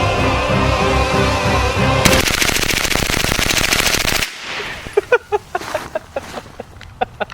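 Music for about the first two seconds, then a rapid string of shots from an MP5-style gun with a forced-reset trigger, a fast even burst lasting about two seconds. After it come scattered light metallic clinks.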